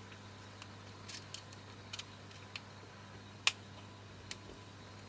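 Scattered light clicks and ticks of a small screwdriver working against a metal optics housing during disassembly, with one sharper click about three and a half seconds in.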